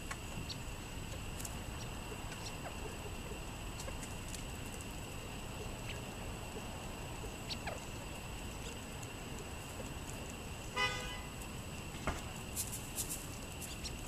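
One short, harsh bird call from the flock of California quail and Eurasian collared doves feeding on scattered seed, a little past halfway, then a few soft taps and flutters near the end.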